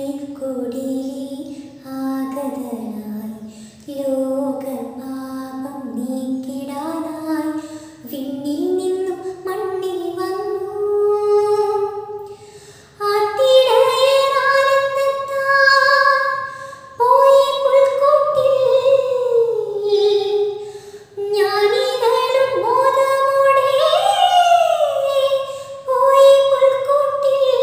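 A woman singing a slow solo melody. About 13 seconds in, her voice rises to a higher, louder line and stays there.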